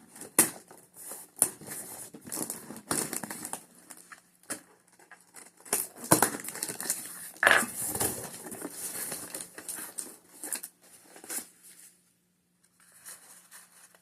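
A heavy cardboard box being opened by hand: packing tape tearing and packing material crinkling and rustling, with scattered short knocks, one stronger about halfway through.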